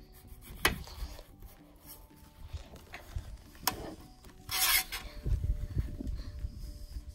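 Small kitchen knife cutting through a lemon in a metal baking pan: rasping, rubbing cuts, with two sharp clicks of the blade on the pan and a short scraping rasp about four and a half seconds in.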